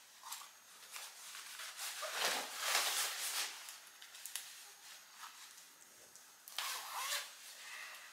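Soaked rain gear being handled: fabric rustling and rubbing in bursts, loudest from about two to three and a half seconds in and again around seven seconds.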